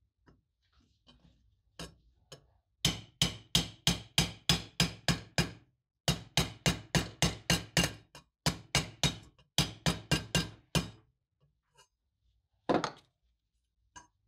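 Sheet-steel lantern body being tapped with a hammer over an aluminium tube to knock out a dent: quick runs of sharp, ringing metal strikes at about four a second, broken by short pauses, then two single knocks near the end.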